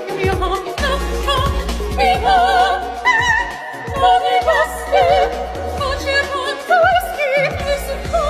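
Music: a singing voice with wide vibrato in an operatic style, over a deep bass.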